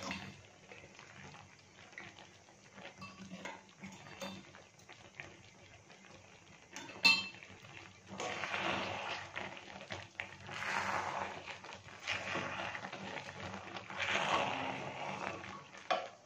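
A flat metal spatula stirring and scraping sticky jujubes in jaggery syrup around an aluminium kadai. It comes in repeated scraping strokes through the second half, after a single sharp metal clink about seven seconds in.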